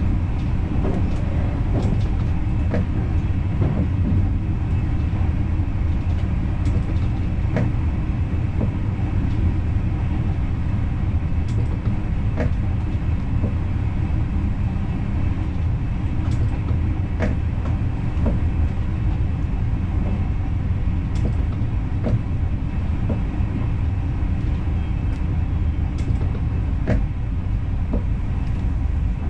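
Intercity passenger train running along the line, heard from inside the driver's cab: a steady low rumble with scattered sharp clicks.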